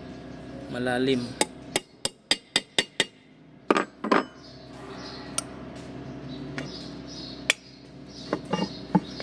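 Sharp metal clicks and clinks of a hex key and wrench working the bolts on a Copeland compressor's steel valve plate. First comes a quick run of about four clicks a second, then two stronger ringing clinks and a few scattered clicks.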